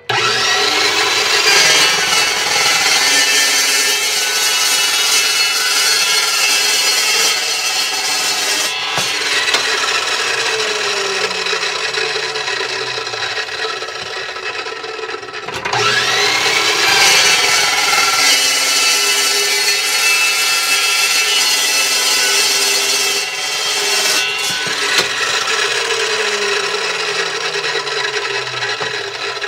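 Metal-cutting chop saw spinning up and cutting through schedule 40 steel pipe with a loud, steady grinding screech. It stops briefly about halfway through, then starts up again for a second cut.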